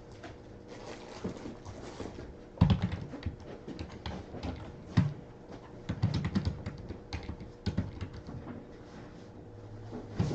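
Irregular light clicks, taps and rustling of hands working at a table, with a few heavier knocks, like typing on a keyboard or handling card packs.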